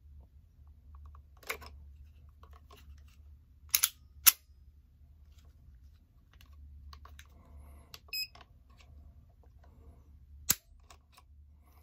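Sharp mechanical clicks of a pocket semi-automatic pistol being dry-fired with a trigger pull gauge hooked on the trigger, the loudest snap about four seconds in as the trigger breaks at about 3 pounds 10 ounces. A short electronic beep comes about eight seconds in.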